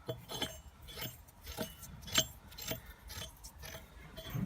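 Metal wheel bolts being cleaned and handled: short, irregular scraping clicks and light metallic clinks, about one every half second.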